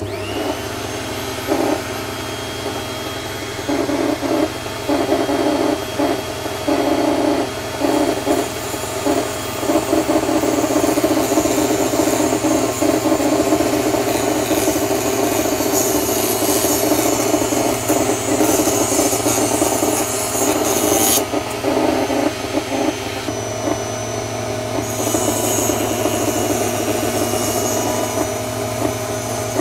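Minleaf ML-MS1 mini table saw's small motor switched on and running steadily, its blade cutting through 4 mm plywood in a series of passes. The cutting comes in short bursts at first and is most continuous from about ten to twenty seconds in.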